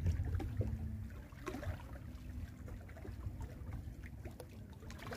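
Small waves lapping and splashing irregularly against shoreline rocks, over a constant low rumble of wind on the microphone.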